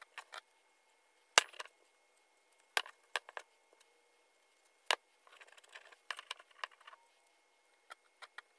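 A wooden cutout being handled on a workbench: scattered light knocks and clicks of wood against the bench and hands, with a few seconds of soft rubbing as a rag is wiped over it a little past the middle.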